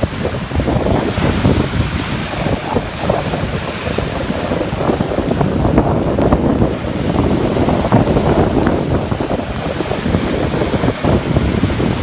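Caspian Sea waves surging and washing, with wind noise buffeting the microphone.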